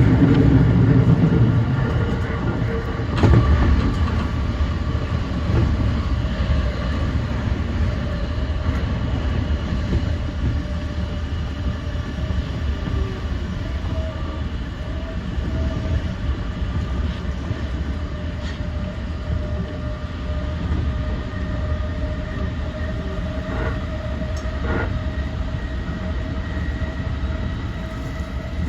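E235 series electric train running between stations: steady rumble of wheels on the rails, with a few knocks over rail joints, the loudest about three seconds in. A steady motor whine sets in about halfway through.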